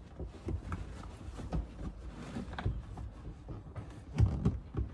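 Handling noise: an oil-absorbent pad rustling and scattered light knocks and clicks as hands work around a fuel filter on a marine diesel, with one louder knock about four seconds in.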